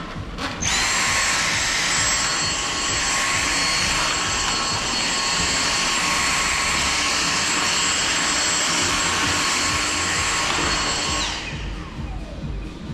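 Vacuum cleaner switched on about half a second in, running with a steady high whine over a loud hiss, then switched off near the end, its whine falling in pitch as the motor spins down.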